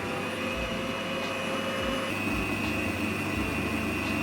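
Electric mixer running steadily at speed, beating cream cheese frosting, its motor giving a constant high whine.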